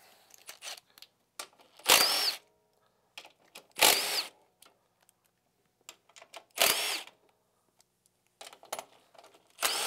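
Cordless drill with a socket extension running in four short bursts about two to three seconds apart, its motor whine rising and falling each time as it spins a snowmobile A-arm bolt. Light clicks of tools and parts come between the bursts.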